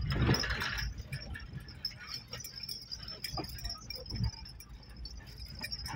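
Loose things rattling and clinking inside a vehicle's cabin as it drives over a rough sandy dirt track, over a low rumble from the vehicle. A louder burst of noise comes in the first second, and a faint steady high whine runs underneath.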